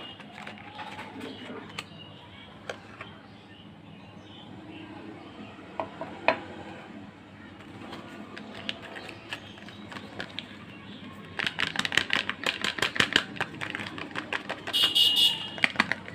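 Soap packaging being handled and opened by hand: scattered crinkles and clicks, then a fast run of crackling about three-quarters of the way through, followed by a brief high squeak.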